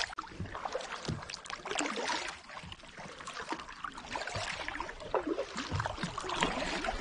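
Kayak paddle strokes: the blade dipping and splashing in the water, swelling and fading every couple of seconds.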